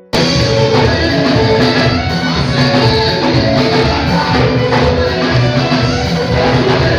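Loud background music with guitar and a steady beat, cutting in suddenly just after the start from a quieter plucked-note passage.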